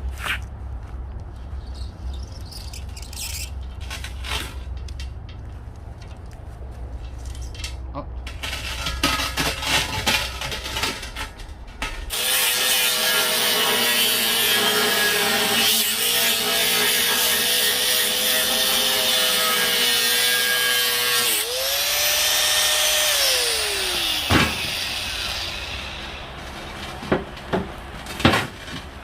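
A handheld power tool, an angle grinder, runs loud and steady against metal for about nine seconds. It is then lifted off, its pitch rising briefly before it winds down. Before it there is scattered clattering and knocking of metal pieces over a low hum, and a few sharp knocks come near the end.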